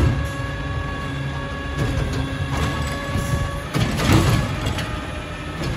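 Side-loading garbage truck with a Bridgeport Ranger body, its automated arm dumping a cart. The diesel engine runs steadily under the hydraulic whine, with sudden clanks and bangs as the arm and cart jolt. The loudest bang comes about four seconds in as the cart empties into the hopper.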